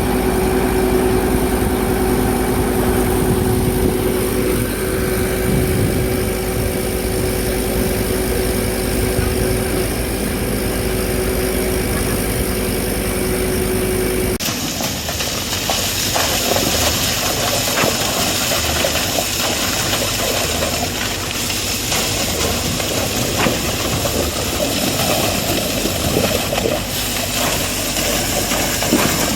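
Concrete truck's diesel engine running steadily with a humming tone. About halfway through the sound changes abruptly to a noisier engine-and-machinery mix with scattered clicks and rattles.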